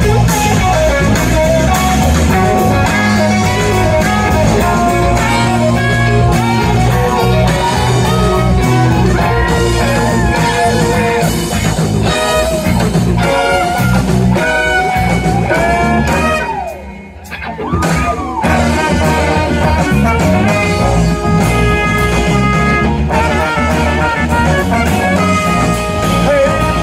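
Live band playing: a horn section of trombone, saxophone and trumpet over electric guitars, bass and drums. The band briefly drops away about two thirds of the way through, with a sliding note, then comes back in.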